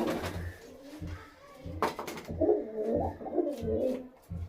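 Domestic pigeons cooing, repeated low warbling calls that are strongest in the second half, with one sharp click a little before two seconds in.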